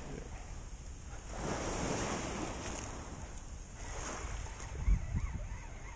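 Waves washing in a tidal inlet rip, the water noise swelling and fading, with wind buffeting the microphone. A single low thump about five seconds in.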